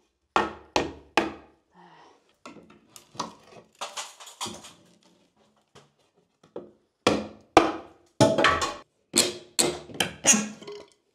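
Claw hammer knocking at nailed wooden architrave trim around a loft hatch opening to prise it off. There are three quick blows, then softer scraping and creaking of the wood being worked loose, then a run of about eight sharp blows.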